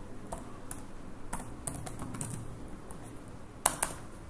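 Typing on a computer keyboard: scattered key clicks, with two louder key presses in quick succession near the end.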